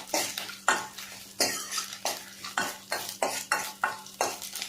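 A spatula stirring and scraping in a kadai as urad dal, coconut, tamarind and dried red chillies fry in a little oil on low heat, in regular strokes about every half second to second over a faint sizzle.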